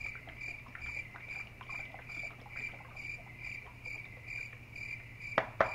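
A cricket chirping steadily, about two chirps a second, over a low hum. Two sharp knocks come near the end.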